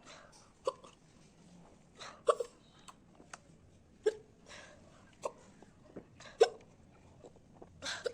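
A woman hiccuping repeatedly, about five sharp hiccups a second or two apart, with a few fainter ones between. It is a persistent bout of hiccups that keeps her from drinking.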